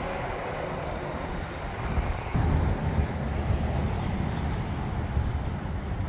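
Outdoor road-vehicle and traffic noise around a car park and fuel forecourt, a steady wash with a low rumble that gets louder a little over two seconds in.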